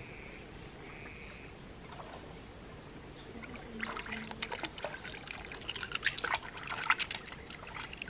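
Hands scooping and splashing in shallow river water, with water trickling and dripping back. The splashing starts about halfway through, in quick irregular bursts.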